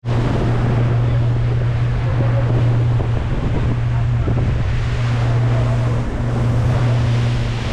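Boat engine running with a steady low hum as the boat travels at speed, with wind buffeting the microphone and water rushing past the hull.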